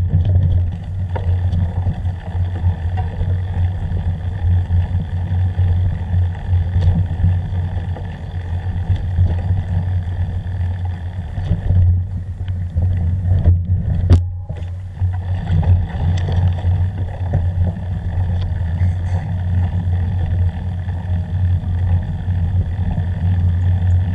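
Steady low rumbling drone of a vehicle travelling along a dirt forest track, picked up by an action camera's microphone. The sound briefly drops out twice around the middle.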